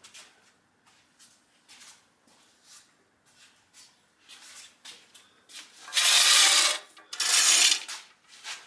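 Handling noise: faint light taps and rustles, then two loud rubbing, scraping sounds of about a second each, a little after the middle.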